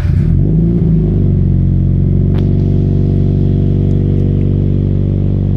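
Subaru BRZ's 2.0-litre flat-four boxer engine, breathing through a Greddy Evolution GT cat-back exhaust, catching on a cold start. It flares up in revs for about a second, drops back and settles into a steady fast cold idle.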